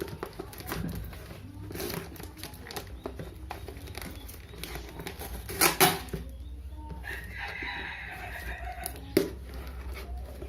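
A rooster crows once, a pitched call of about two seconds in the second half, over scattered knocks and rustling from handling the package, with one sharper knock just before the crow.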